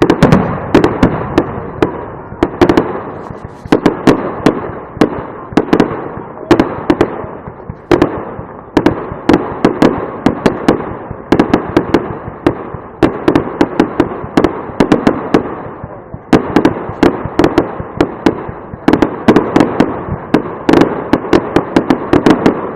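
Fireworks display going off: a continuous run of sharp bangs in rapid clusters every second or two, each bang trailing off in a rolling echo.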